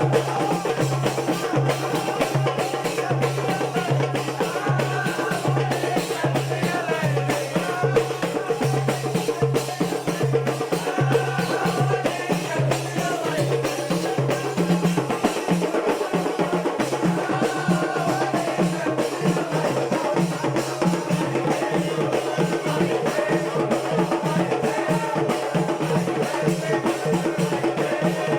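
Music with a steady drum beat and a melody line wavering above it.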